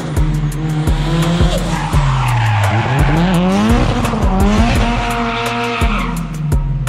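Toyota Starlet KP60 with a 20-valve turbo engine drifting: the engine revs dip and climb several times while the tyres squeal, the squeal strongest through the middle of the slide.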